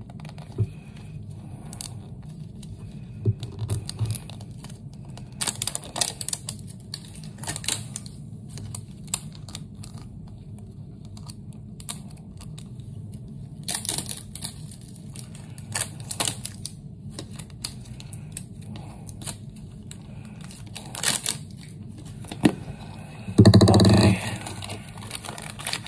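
Plastic packaging of a Mini Brands capsule ball being opened by hand: scattered crinkling, tearing and small plastic clicks as the miniature items are unwrapped. A short loud burst near the end.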